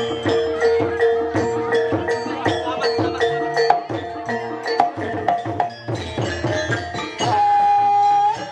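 Live Javanese gamelan music for a jaranan buto dance: a repeating melody on tuned metallophones over hand-drum strokes, with one long held note near the end.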